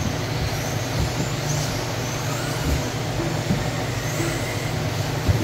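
4WD electric RC buggies with 13.5-turn brushless motors racing on carpet: thin high motor and drivetrain whines that rise and fall as the cars accelerate and brake, over a steady low hum.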